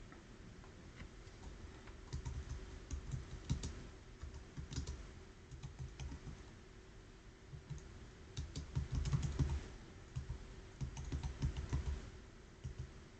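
Computer keyboard typing: clusters of keystrokes in two main bursts with a short pause between.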